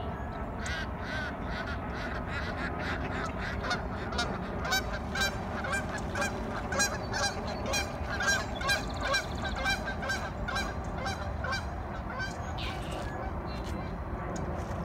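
Canada geese honking over and over, about two calls a second, building after a second or so, loudest in the middle and dying away a few seconds before the end. A steady low rumble runs underneath.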